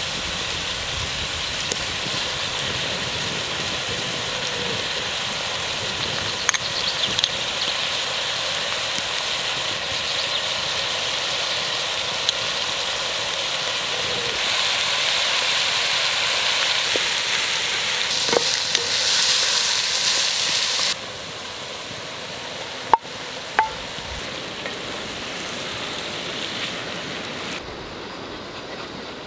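Diced carrots and onion sizzling steadily in a frying pan over a wood fire, with a few small clicks. The sizzle turns noticeably quieter about two-thirds of the way through.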